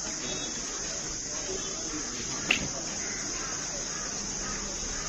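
Steady high-pitched drone of insects, with one sharp click about halfway through.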